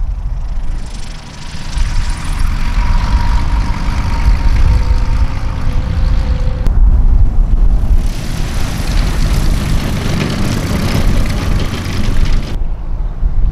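Piston engine and propeller of a small high-wing light plane running at low taxi power, with heavy wind rumble on the microphone. The sound changes abruptly twice, where the footage cuts between planes.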